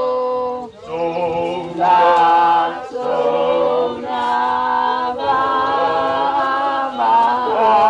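A group of mixed voices singing unaccompanied in several parts: slow, sustained chords in phrases of about two seconds, each separated by a short breath.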